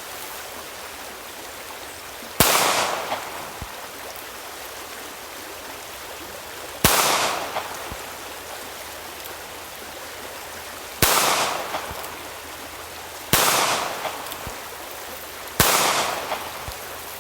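Five shots from a .22 Magnum with a ported barrel, a few seconds apart and closer together near the end. Each is a sharp crack followed by a fading echo, over a steady background hiss.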